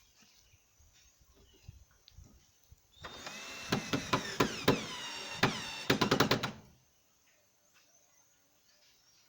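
Power drill running for about four seconds from some three seconds in, its pitch dropping as it bites, with a quick run of clicks near the end before it stops. Light knocks and handling sounds come before and after it.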